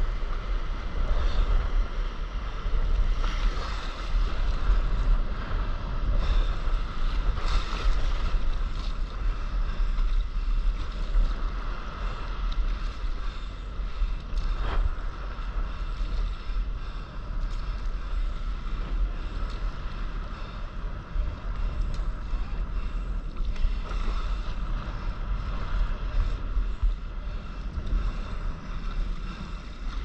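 Wind buffeting an action camera's microphone at water level, over the wash of small breaking waves and water sloshing against a surfboard.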